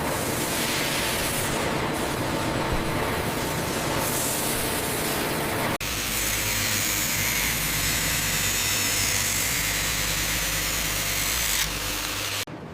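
Steady hissing machine noise with a low hum, changing abruptly to a different steady hiss about six seconds in and cutting off near the end.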